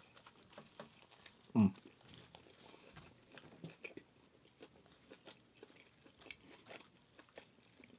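A person chewing a mouthful of a breakfast sandwich on a lightly toasted everything bagel, close to the microphone: faint wet mouth sounds and small clicks. There is one brief, louder 'mm' from the eater about one and a half seconds in.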